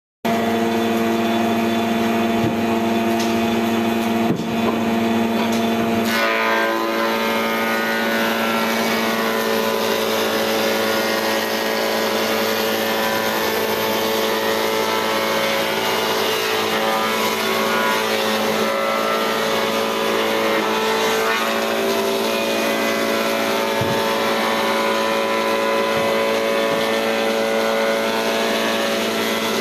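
Combination planer-thicknesser running continuously, its motor and spinning cutterhead giving a steady hum with several held tones as timber boards are fed through and planed.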